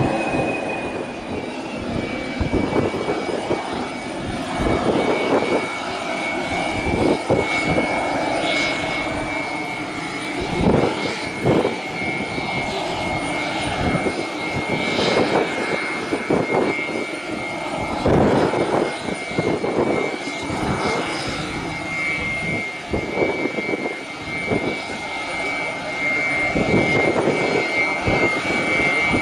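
Air Tractor AT-802's PT6A turboprop engine running at low power while the plane taxis: a steady high turbine whine that settles slightly lower in pitch in the first two seconds, with uneven gusts of noise over it.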